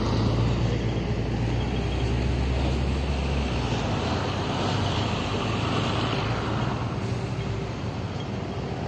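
Street traffic with a large vehicle's engine humming close by; the low hum fades after about three and a half seconds, leaving an even traffic hiss that swells for a few seconds in the middle.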